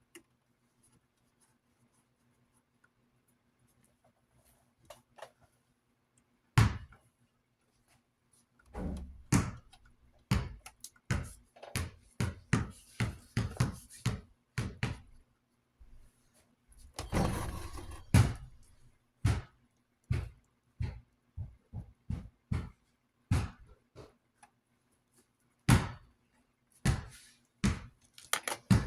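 Scattered knocks, taps and clicks from fan parts and tools being handled on a workbench, with a short rubbing or scrubbing sound partway through. It starts quietly, with a faint hum, before the handling begins.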